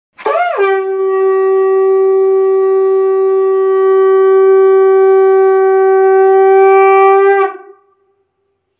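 Conch shell (shankh) blown in one long note: the pitch swoops up at the start, then holds steady for about seven seconds and stops.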